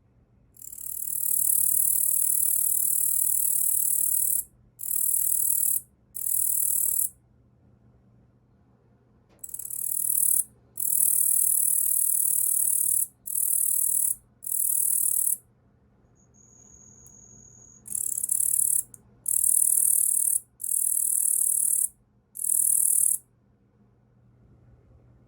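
A male Tettigonia orientalis katydid (yabukiri) stridulating: a high-pitched, dry buzzing song in about eleven bursts. The bursts last from half a second to nearly four seconds, with short pauses between them.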